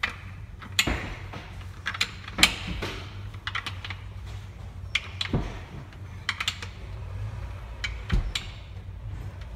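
Irregular light clicks and taps of gloved hands fitting the centre cap onto a Rotiform YVR wheel, over a steady low hum.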